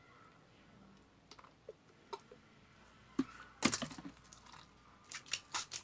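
Sticky, half-activated slime being worked by hand, giving scattered wet clicks and squelches, with a quick flurry about two-thirds in and a few more near the end.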